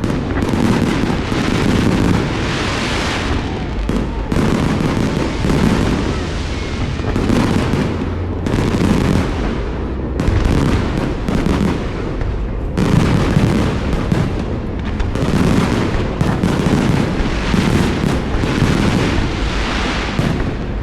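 Aerial fireworks going off in a dense, continuous barrage: booms and bangs following one another so fast they run together into a steady rumble.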